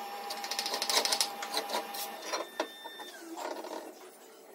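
A fast run of metallic clicks from a hand tool working on the blower motor, followed by a few separate metal clinks and knocks as the parts are handled on a steel workbench.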